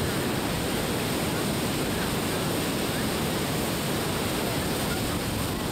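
River rapids rushing steadily: a constant, even wash of fast white water.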